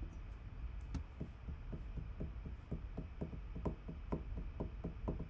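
Even, rapid ticking, about four ticks a second, starting about a second in, over a low steady hum.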